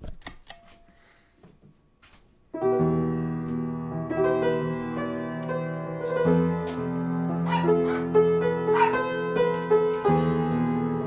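Solo piano playing slow, sustained chords, with higher notes struck over them later on. The piano comes in about two and a half seconds in, after a few short clicks.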